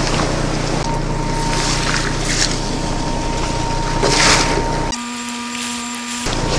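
Fishing boat's engine running steadily under way, with wind and rushing water. About five seconds in the engine noise drops out for about a second, leaving a quieter low hum, then returns.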